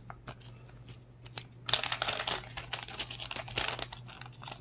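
Clear plastic zip-lock bag crinkling as it is handled, starting with a few light clicks, then dense crinkling from about a second and a half in that dies down near the end.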